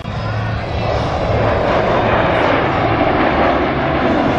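Formation of US Air Force Thunderbirds F-16 fighter jets flying past, their jet engine noise swelling into a steady rush about a second in.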